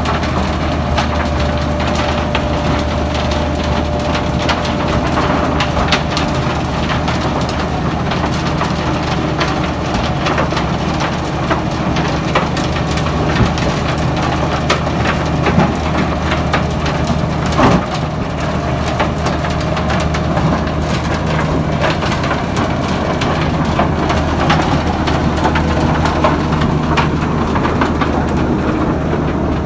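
Heavy road-construction machinery running steadily: a constant low diesel drone with many small clicks and knocks over it, and one sharper knock a little past the middle.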